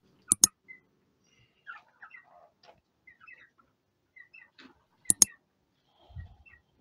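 Two sharp double clicks about five seconds apart, the tap sounds of a like-and-subscribe button animation, over faint, scattered calls from a flock of white broiler chickens.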